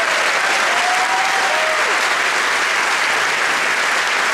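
Audience applauding steadily at the end of a performance, with a few voices cheering over the clapping.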